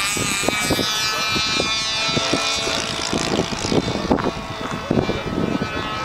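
RC model Mustang's engine and propeller running in flight, a high-pitched whine that drops in pitch over the first couple of seconds and then holds steady. Gusty wind buffets the microphone throughout with low rumbles.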